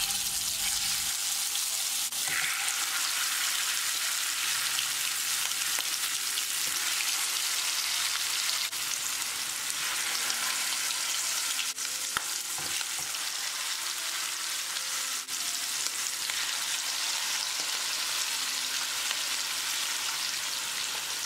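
Masala-coated kingfish pieces sizzling steadily as they shallow-fry in hot oil in a nonstick pan, with a few faint clicks along the way.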